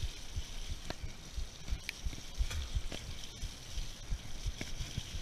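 Mountain bike riding over a wet, leaf-covered dirt trail: tyres rolling through mud and leaves, with irregular low thumps from bumps jolting the handlebar and a few sharp rattling clicks from the bike.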